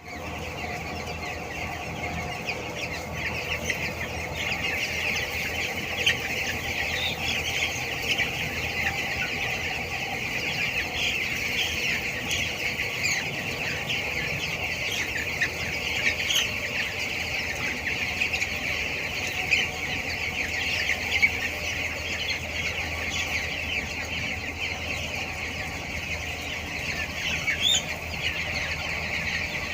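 A large flock of two-week-old broiler chicks peeping continuously, a dense chorus of many overlapping high cheeps, over a steady low hum.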